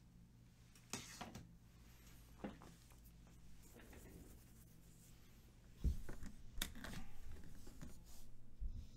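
Trading cards in hard plastic toploaders being picked up and handled on a desk mat: plastic knocks and rustling, starting about six seconds in, after a couple of faint clicks.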